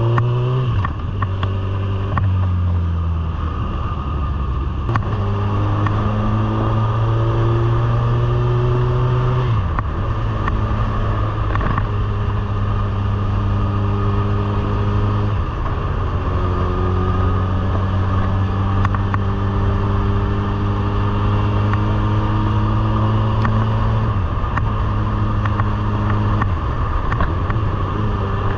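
Honda CB1000R inline-four engine running under way, heard from on board the moving motorcycle. Its note holds fairly steady and changes pitch several times.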